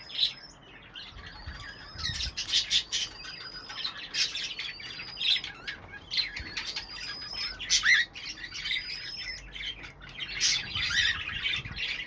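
Cockatiels calling: short, high, thin whistles repeated every second or two, mixed with scratchy squawking calls.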